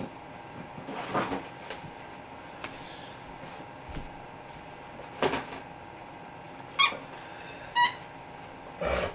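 A dog whining twice near the end, each a short high-pitched whine, among a few soft bumps and rustles.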